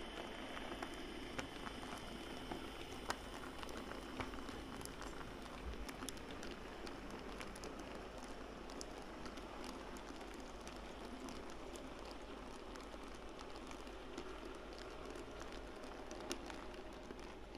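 Model railway freight train of open wagons rolling past on the track: a steady rolling noise of small wheels on the rails, with scattered sharp clicks.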